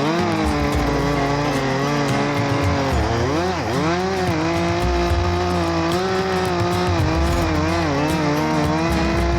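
Two-stroke chainsaw running at high revs while cutting into a tree; its engine speed drops sharply under load about three and a half seconds in, then picks back up.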